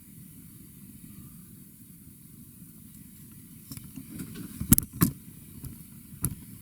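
A few sharp clicks and knocks, a cluster about four to five seconds in and one more near the end, from equipment being handled, over a low steady hum.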